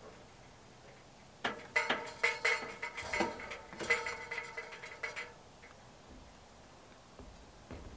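Metal chimney pipe clanking and ringing as a section is fitted at the top of the flue: a quick run of knocks lasting about four seconds.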